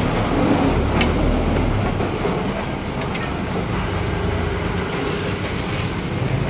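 Steady rumble of street traffic, with a couple of short sharp clicks about a second and three seconds in.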